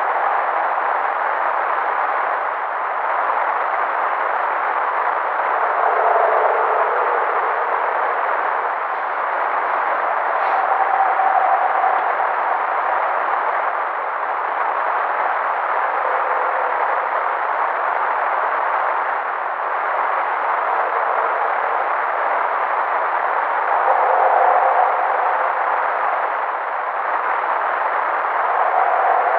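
Wilderness field recording of drawn-out, howl-like animal calls, repeated every five seconds or so, some dropping in pitch, over a steady rushing noise. The higher-pitched calls sound wolf-like, though the caller is unidentified.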